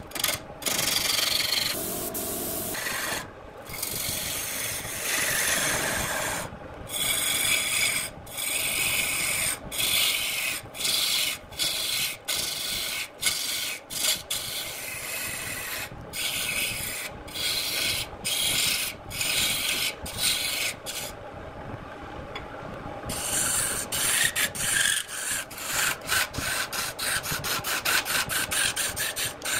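Turning tool cutting a spinning redwood blank on a wood lathe, shavings peeling off the wood. The cut breaks off briefly many times as the tool lifts, stops for about two seconds a little past two-thirds of the way in, and comes as quick short passes near the end.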